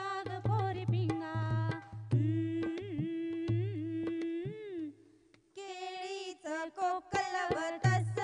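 Marathi folk song for a Mangala Gaur dance: singing over a hand-drum beat, which drops out briefly about five seconds in and then starts again.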